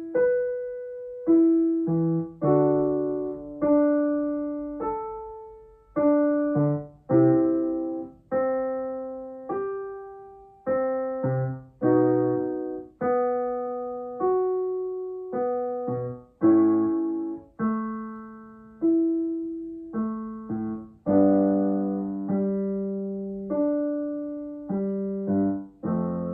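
Piano playing the accompaniment for a vocal warm-up: a run of single notes and short note groups, about one or two a second, each struck and left to fade, with fuller low chords from about two-thirds of the way in.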